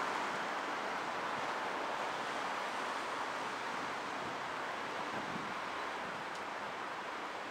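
Steady outdoor street ambience: an even background rush of city noise with no distinct events.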